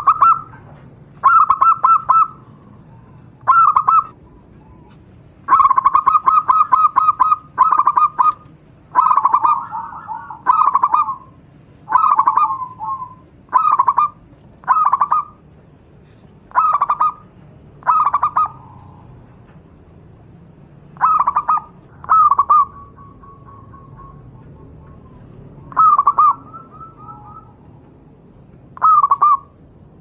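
Zebra dove (local Javanese perkutut) cooing: about fifteen short phrases, each a rapid run of notes, repeated with pauses of one to three seconds between them.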